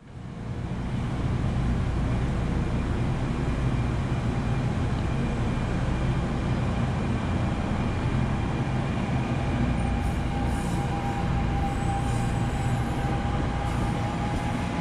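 NJ Transit electric commuter train rolling past the platform: a steady low rumble of wheels and running gear, with a thin steady whine joining about ten seconds in.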